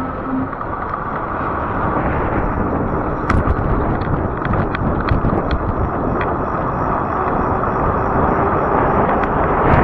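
Steady wind rush on the microphone over the rolling noise of a fat-tire e-bike riding along an asphalt road, with a few light ticks about three to five seconds in.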